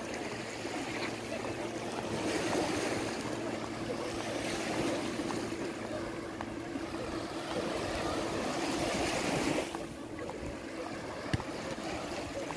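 Small Adriatic waves washing onto a sandy beach, the wash swelling and easing every few seconds. A single sharp click sounds near the end.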